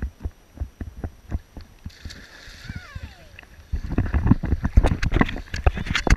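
Small waves slapping against a waterproof action camera at the water's surface in short regular knocks. About two seconds in, a hissing splash with a falling bubbly tone as someone plunges in, then from about four seconds on, close, loud splashing of a swimmer paddling up to the camera.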